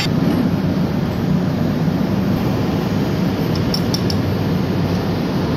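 Steady low drone of running machinery, typical of a ship's engine room, with a few light metal clinks from the pump parts being handled a little past halfway.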